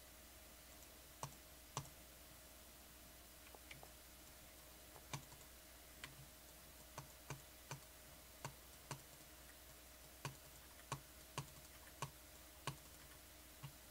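Single sharp clicks at a computer, spaced irregularly about one a second, over a quiet room.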